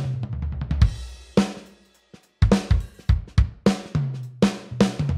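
A drum kit loop of kick, snare, hi-hat and cymbals, run through the Arousor compressor plugin slamming the drum bus with heavy compression and saturation. It stops briefly about two seconds in, then starts again.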